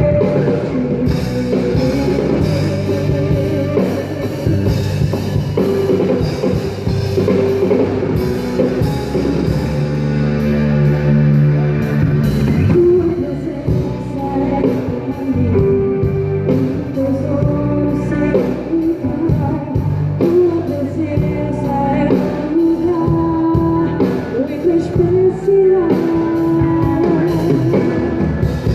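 Live gospel worship band playing a song: a singer over guitar and a drum kit.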